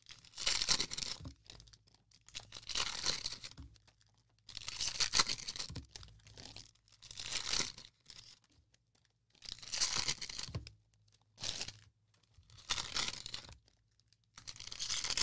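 Plastic cello wrappers of 2020 Prizm football card packs torn open one after another: a crinkling rip about every two seconds, seven in all.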